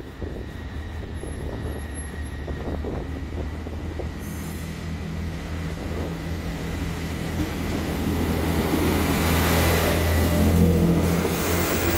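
Class 158 diesel multiple unit approaching along the platform: a steady low diesel engine hum with wheel and rail noise, growing louder until it runs close past about ten seconds in.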